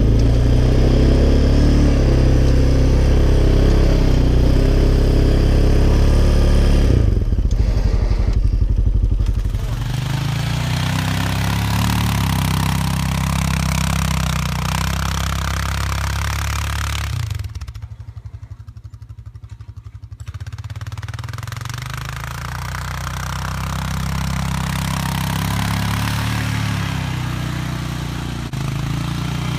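Honda Foreman 450 ATV's single-cylinder four-stroke engine running under load as it pushes a 60-inch plow blade through deep snow. It pulls hard at first, eases back, drops to a quieter idle for a couple of seconds past the middle, then comes back on the throttle.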